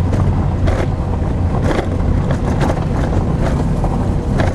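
Dacia Logan car engine running steadily under load as the car climbs a rough gravel track, heard from inside the cabin, with scattered knocks and crunches from stones under the tyres and the suspension jolting over bumps.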